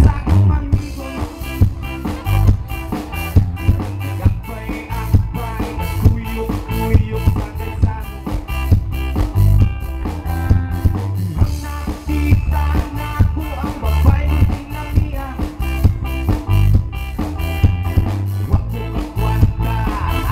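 Live band playing loud amplified music: a steady drumbeat with heavy bass under electric guitar.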